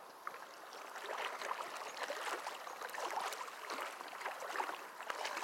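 Water sloshing and splashing around legs wading through knee-deep creek water, swelling and falling unevenly.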